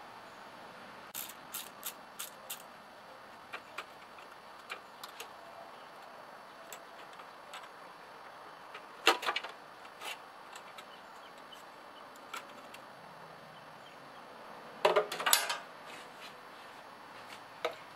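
Light metallic clicks and taps of a throttle cable and hand tools being handled over a small garden tractor engine, with a louder clatter about halfway through and another near the end.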